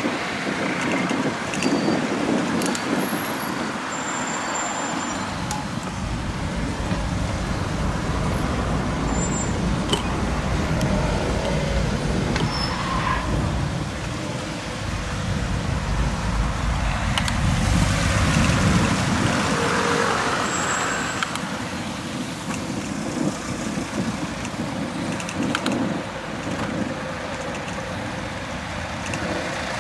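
Road traffic noise from passing motor vehicles mixed with low wind rumble, swelling a little past the middle.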